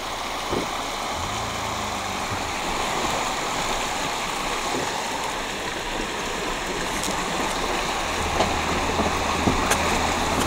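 Car driving through a shallow, rocky river, heard from inside the cabin: a steady rush of water against the tyres and body over the low hum of the engine.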